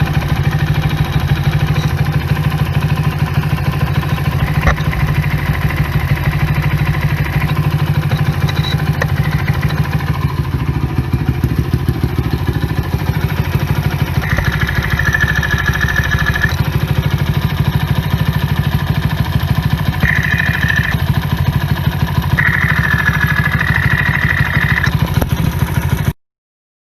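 Honda Little Cub's small single-cylinder four-stroke engine idling steadily with a rhythmic mechanical clatter, listened to through a sound scope while checking it for an abnormal noise. A high whine comes and goes several times, and the sound cuts off suddenly near the end.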